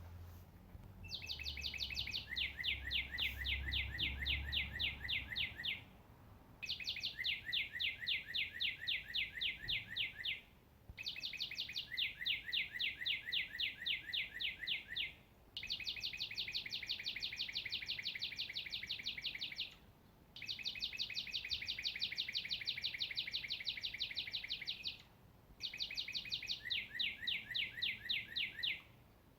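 A songbird singing six long trills in a row. Each trill is about four seconds of rapid, evenly repeated notes, with a short pause between trills.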